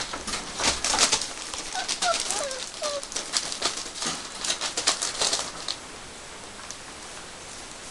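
Airedale puppies giving several short, high squeaks and whimpers around two to three seconds in, over a run of scratching, scuffling and clicking from paws on newspaper, rug and the wire pen. The scuffling is the loudest sound and dies down about six seconds in.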